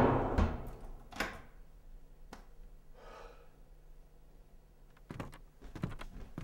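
Music fades out, then a house door shuts with a knock about a second in and a latch click, leaving quiet room tone with a few soft knocks near the end.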